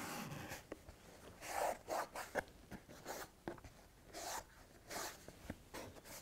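Cloth rubbing over MDF panels in several short strokes, wiping off excess glue, with light taps and knocks as the wooden kit is handled.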